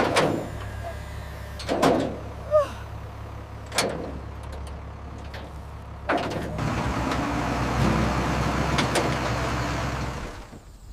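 A vehicle engine running low and steady, with several knocks and clunks and a short creak, then from about six seconds in a louder rolling, grinding noise that fades away near the end, as a heavy vehicle is eased slowly into place.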